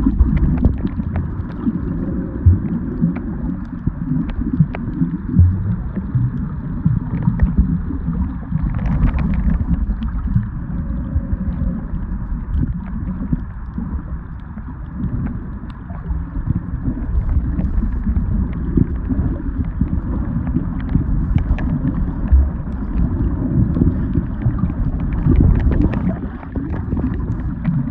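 Muffled underwater rumble and sloshing of water around a camera held below the surface, with scattered faint clicks.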